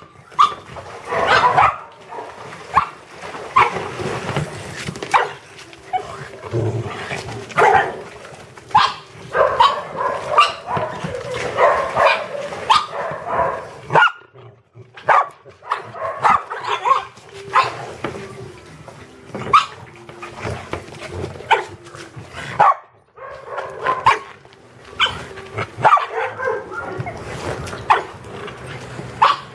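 Dogs barking and yipping over and over, short sharp barks following one another with only brief lulls.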